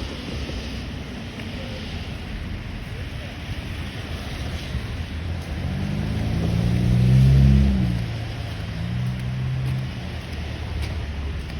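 Wind buffeting the microphone, with a low engine hum that swells to its loudest about seven seconds in and then fades as a vehicle passes.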